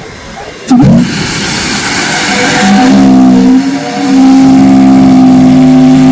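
Chime steam whistle blown: a rush of steam comes in suddenly about a second in, then a loud chord of several steady tones sounds from about three seconds in, dips briefly, and holds on steadily.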